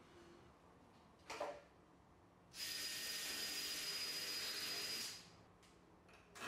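Cordless drill-driver running steadily for about two and a half seconds against a wooden shelf divider, a high whine over a hiss. A short knock comes about a second before it.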